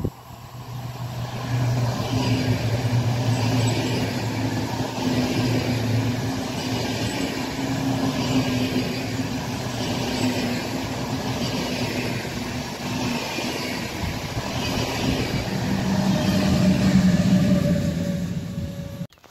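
Swiss IC2000 double-deck passenger train passing close by: a steady rumble and hiss of wheels on rail, with a whoosh that repeats about every second and a half to two seconds as each coach goes by, and a hum that swells louder near the end. The sound cuts off abruptly just before the end.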